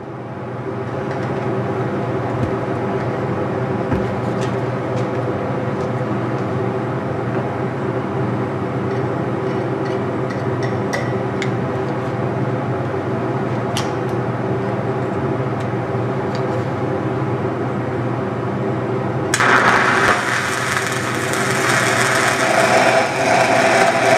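A steady machine drone holds until, about five seconds before the end, a 6010 stick-welding arc strikes and crackles loudly on the pipe's root pass, run uphill.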